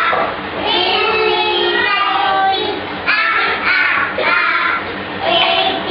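Young children singing a song together in high voices.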